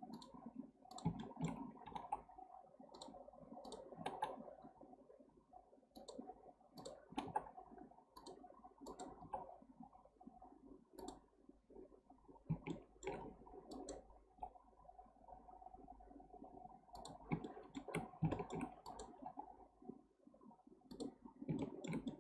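Computer mouse and keyboard clicking at irregular intervals, often in small clusters, over a faint steady background hum.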